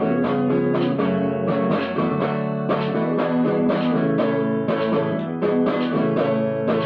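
Gretsch guitar strummed alone in a steady rhythm, about three strokes a second, playing chords between sung verses.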